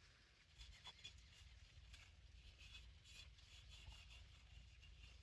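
Faint, irregular rubbing of an oily hand over the outside of an unglazed clay cooking pot, spreading mustard oil to season the new pot and seal its pores before first use.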